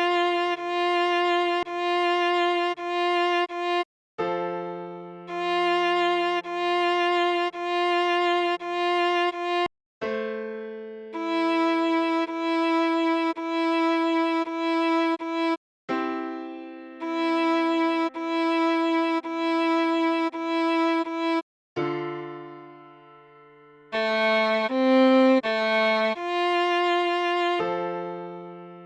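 Viola playing a melody slowed to half speed for practice, in phrases of repeated short notes over longer low notes that fade out, with brief silent breaks between phrases and a quicker run of changing notes near the end.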